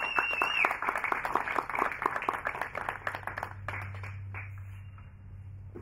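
Small audience applauding, with a short high whistle at the start. The clapping is dense for about three seconds, then thins out and dies away.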